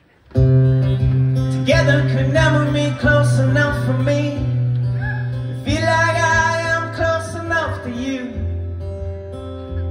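Live song: a solo acoustic guitar strummed steadily, entering about half a second in after a brief hush, with a man singing two phrases over it from about two seconds in until near the end.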